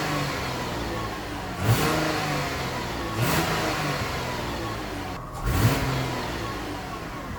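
Kia Sportage engine and exhaust under way, rising and falling in pitch with three louder surges of acceleration. The driver suspects a small exhaust leak, which turns out to come from a crack at the catalytic converter's flange ear.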